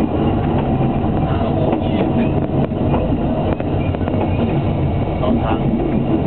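Train running along the track: a steady rumble and rattle from the wheels and carriage, with occasional clicks.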